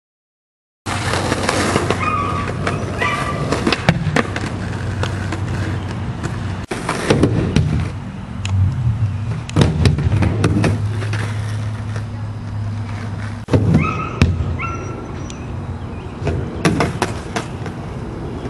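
Skateboard wheels rolling on pavement with a steady low rumble, broken by sharp clacks and knocks as the board is popped, hits a wedge kicker ramp and lands. It starts about a second in, after silence.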